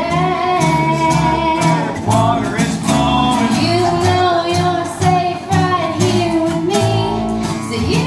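Live acoustic folk-country band music: acoustic guitar strumming over a pulsing upright bass line, with singing in long held notes.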